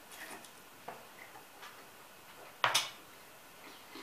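Sounds of someone eating spaghetti: sparse, short clicks and smacks from the mouth and from a fork against the bowl, the loudest a sharp click about two-thirds of the way through.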